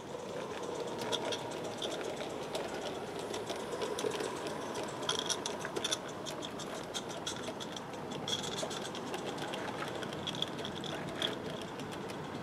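A 16 mm scale live steam garden-railway train running past, a steady hiss with irregular clicks and rattles of small wheels and wagons on the track.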